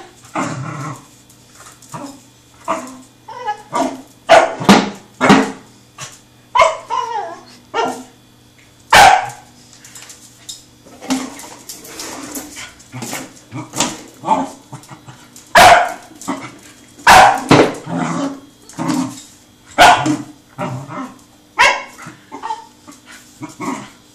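Pembroke Welsh Corgi puppy barking and yapping in excited play, many short sharp barks and higher yips at irregular intervals, roughly one a second.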